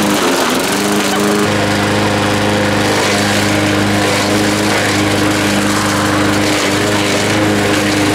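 Gasoline push mower engine running steady under throttle. Twice its pitch sags and then climbs back, near the start and again about six and a half seconds in, as the blade chews through eggplants.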